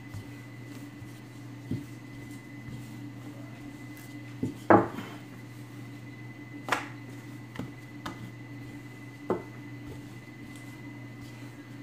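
A wooden rolling pin knocking and bumping on a table as pizza dough is rolled out, with a handful of sharp knocks, the loudest about halfway through. A steady low hum runs underneath.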